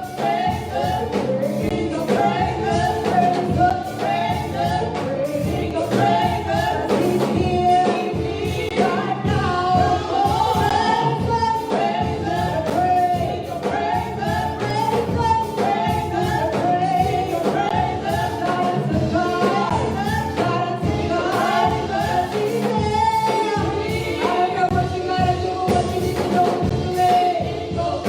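Gospel choir singing with band accompaniment, a steady beat under the sung melody.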